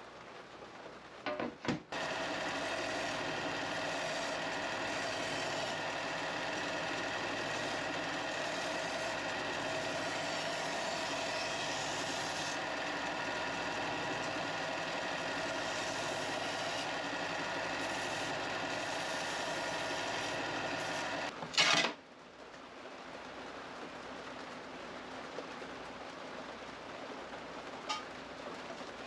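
Angle grinder running with a steady whine while cutting 2.3 mm steel plate, for about twenty seconds. It starts after a few clicks and ends with a sharp loud clank.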